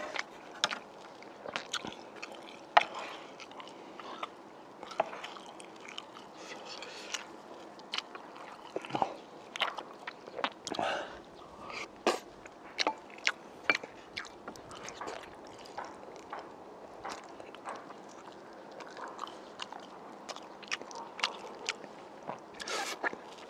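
Close-up chewing and biting of spicy braised pork ribs: wet mouth clicks and smacks at irregular intervals.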